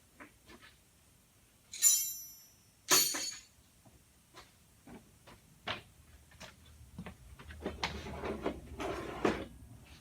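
Two short blasts of compressed air from a rubber-tipped blow gun, about a second apart, trying to force the seized piston out of an MGC brake wheel cylinder. Light clicks follow, then scraping and handling noise near the end.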